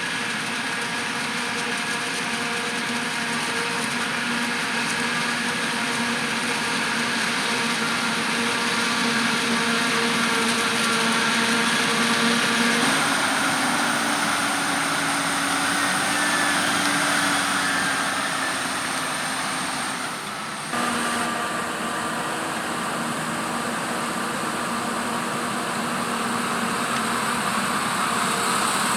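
Diesel engines of heavy farm machinery running steadily. About twenty seconds in the sound dips briefly and the engine note changes.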